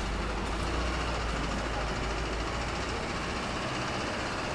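City street ambience: road traffic passing with a low rumble that eases off about three seconds in, under faint voices of passers-by.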